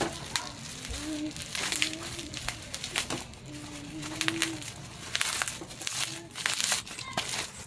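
Crinkling and rustling with many sharp clicks and crackles, under a faint voice.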